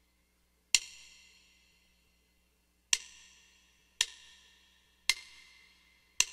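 Percussion count-in before a slow jazz backing track. Five sharp clicks, each with a short ring: two slow ones about two seconds apart, then three evenly about a second apart.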